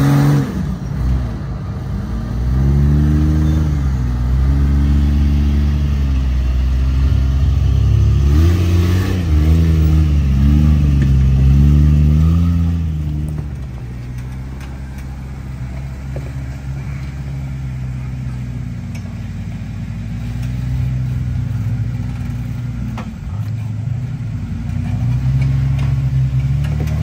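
Off-road Jeep engines working at low speed while rock crawling. First a lifted Jeep Cherokee is revved up and down repeatedly as it picks its way over rock, about thirteen seconds of rising and falling engine note. Then a Jeep Wrangler Rubicon climbs a rock ledge with a quieter, steadier engine and a few short blips of throttle near the end.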